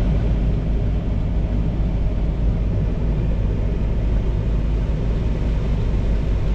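Vehicle engine running steadily at idle, an even low rumble with no revving.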